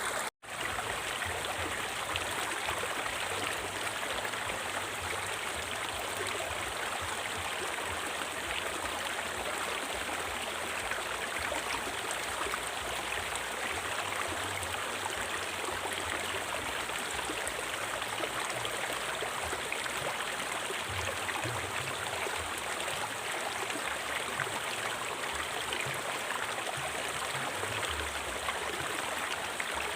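River water flowing and rushing steadily over rocks. The sound cuts out completely for a split second just after the start, then resumes.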